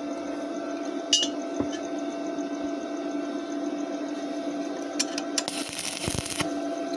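Steady electrical hum with a sharp metallic clink about a second in, a couple of ticks, and a hissing, crackly burst lasting about a second around six seconds in.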